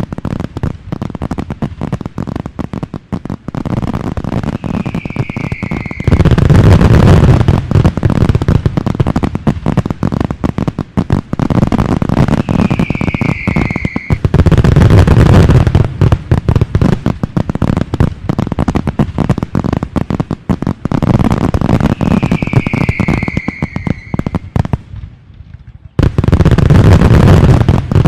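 Fireworks: steady crackling of burning stars, broken three times by a short falling whistle and then a loud boom and a dense burst of crackle.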